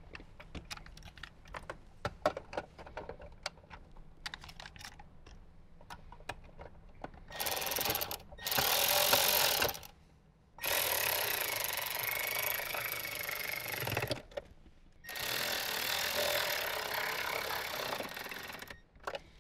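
Cordless power driver running in bursts to drive two bolts that hold the Uconnect module in the dash. First come light clicks of handling, then two short runs about seven and nine seconds in, then two longer runs of a few seconds each.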